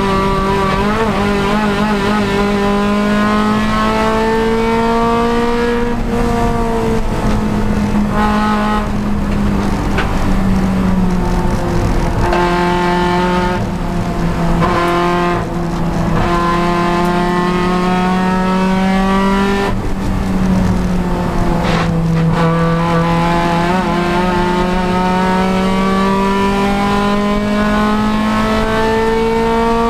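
Honda Civic Si race car's engine running hard at speed, its pitch climbing steadily under acceleration and dropping back a couple of times before climbing again. Tyre squeal comes in at times.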